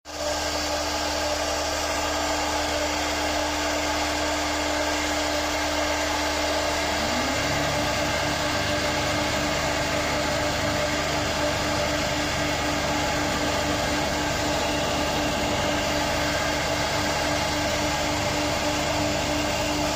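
CNC router spindle running steadily, its bit carving into wood with a constant whine over the cutting noise. About seven seconds in, a second motor spins up with a short rising hum and keeps running alongside.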